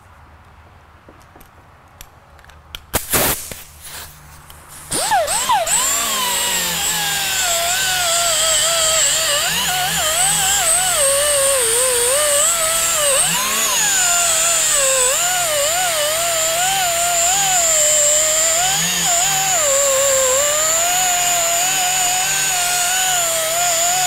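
A few sharp knocks about three seconds in, then a pneumatic die grinder with a surface-cleaning disc starts about five seconds in and runs continuously with a high whine, its pitch wavering as it is pressed against the transmission case to strip old Permatex sealant off the mating face.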